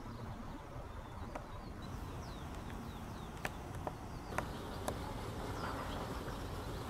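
Small birds chirping repeatedly over a steady low outdoor rumble, with four sharp clicks about half a second apart in the middle.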